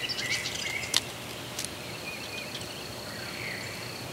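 Rural outdoor ambience: songbirds chirping, then a steady high insect trill that sets in after about a second. A single sharp click about a second in is the loudest sound.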